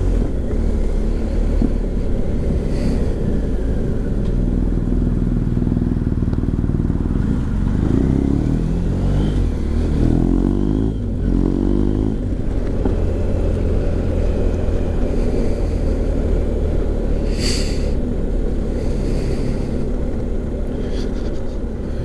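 BMW R 1250 GS Adventure boxer-twin engine running through an aftermarket Remus Hawk exhaust while riding along. Around the middle the revs climb three times in quick succession as the bike pulls through the gears.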